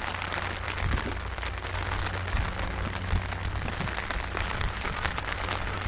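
Steady outdoor background noise: a low rumble with an even hiss and a few faint crackles, and no distinct event.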